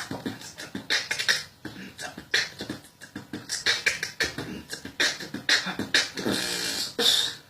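Human beatboxing: fast mouth-percussion strikes and hissy hi-hat-like bursts in a dense rhythm, with a short pitched vocal sound near the end. It stops abruptly.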